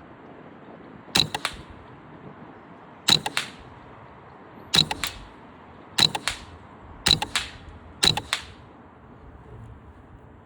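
Six shots from a moderated Smith & Wesson M&P 15-22 semi-automatic .22 rifle firing subsonic rounds, spaced one to two seconds apart. Each is a short muffled pop followed at once by the clack of the action cycling.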